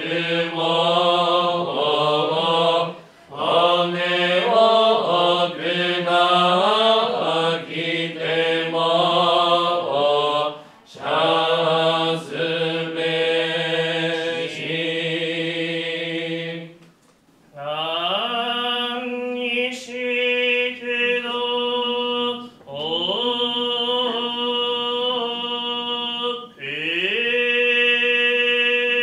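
Shin Buddhist shōmyō chanting by a group of priests in unison: long held notes that waver and slide slowly. It breaks off briefly about 17 seconds in, and the phrases after that each begin with a slide up in pitch before holding steady.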